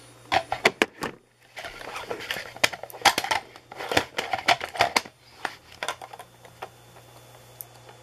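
A run of light, sharp plastic clicks and knocks as the small ultrasonic octopus humidifier's top and water reservoir are handled. The clicks thin out to a few faint ones after about five seconds.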